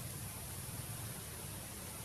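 Steady background hiss with a low rumble underneath. No distinct sounds stand out.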